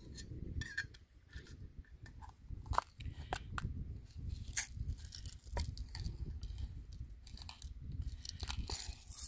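Small metal percussion-cap tin being handled and worked open, giving scattered light clicks, taps and scrapes, with wind rumbling on the microphone underneath.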